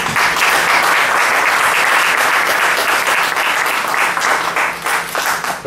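Audience applauding, the clapping thinning out to a few scattered claps near the end.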